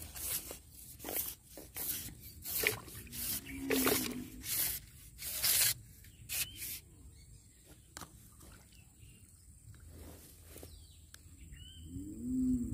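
Irregular rustling and scraping handling noises as a fishing pole is gripped and moved about over grass, coming thick for the first few seconds and thinning out after about six seconds. A short voiced sound comes near the end.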